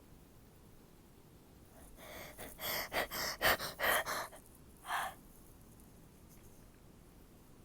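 A person's stifled sneezes with gasping in-breaths. A run of quick, breathy bursts comes between about two and four seconds in, and one more follows near five seconds.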